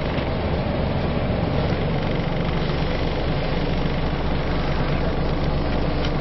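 Scania L94UA articulated bus's diesel engine running steadily at low revs, heard from inside the passenger saloon.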